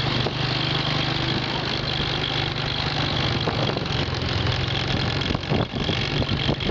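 A vehicle engine running steadily at low speed, a low even drone that holds the same rhythm throughout.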